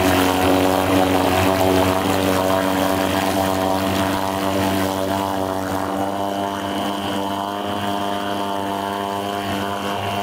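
1972 Johnson 4 hp two-stroke outboard motor running steadily in a test tub, its propeller churning the water. The engine note holds a constant pitch, easing slightly in loudness over the first few seconds.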